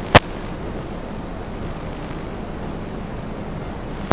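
DJI Phantom 2 quadcopter in flight: a steady rushing hiss with a faint low hum, broken by two sharp, loud pops about four seconds apart, one just after the start and one at the end.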